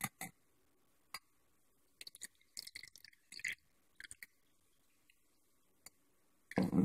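Balsamic vinegar poured from a bottle into a measuring cup: faint scattered clicks and small liquid splashes. Near the end a loud, noisy handling sound starts.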